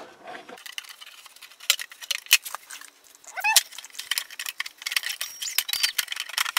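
Plastic timing belt covers being pushed into place by hand on an Audi 2.8 V6 engine: a scattered run of light plastic clicks and clacks, with a brief rising squeak about three and a half seconds in.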